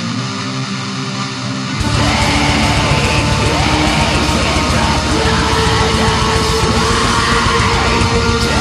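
Black metal song: a quieter passage of plucked strings gives way about two seconds in to the full band, with fast, dense drumming, distorted guitars and harsh yelled vocals.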